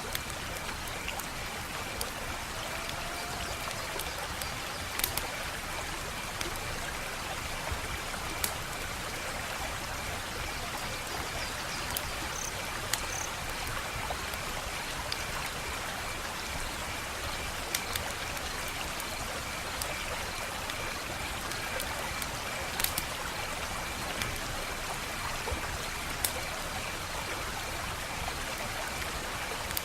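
Wood fire crackling: a steady hiss with sharp pops scattered every second or two.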